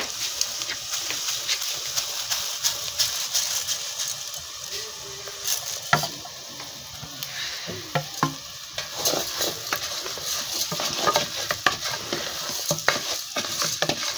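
Dry rice sizzling as it fries in hot oil with chopped onion and green pepper in an aluminium pot, while a wooden spatula stirs it, scraping and knocking against the pot. The knocks come thicker from about six seconds in.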